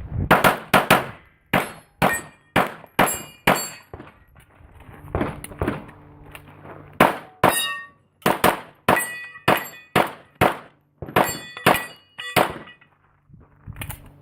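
Rapid pistol fire from a CZ Custom Accu-Shadow: about twenty shots in quick strings, with brief pauses about four and six seconds in. Several shots are followed by a metallic ring, typical of steel targets being hit.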